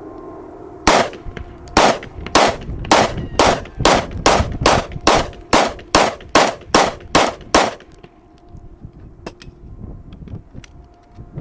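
A semi-automatic firearm fired in a fast string of about sixteen shots, the spacing shortening to roughly three shots a second, then stopping about 7.5 seconds in. A few faint sharp clicks follow.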